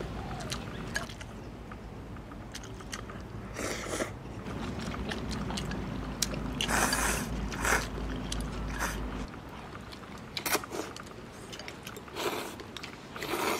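People eating instant noodles: a run of short slurps, several seconds apart, with chewing between them.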